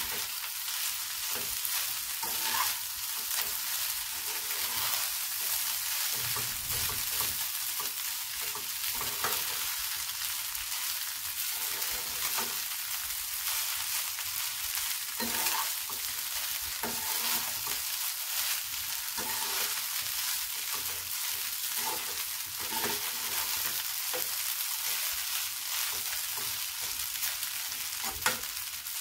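Fried rice sizzling in a hot pan while it is stirred and tossed with a metal spatula: a steady frying hiss with irregular scrapes and taps of the spatula against the pan, and one sharper knock near the end.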